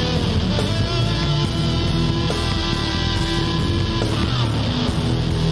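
Instrumental blues-rock background music with guitar, playing at a steady level.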